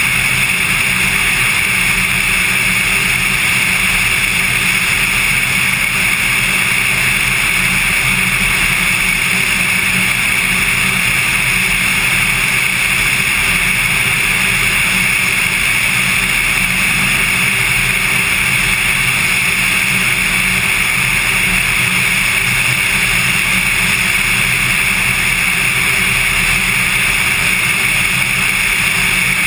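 Cessna 182's six-cylinder piston engine and propeller droning steadily in cruise flight.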